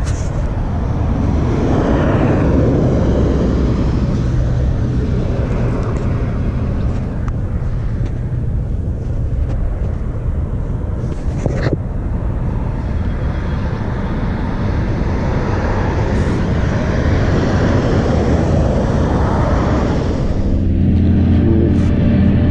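Road traffic rushing past, swelling and fading twice. Near the end the low engine note of an approaching heavy truck grows louder.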